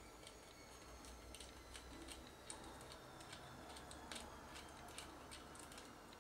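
Faint, irregular small clicks and ticks of fingers working at the plastic body of a Sony DSC-H10 compact camera, easing its front cover off the retaining clips.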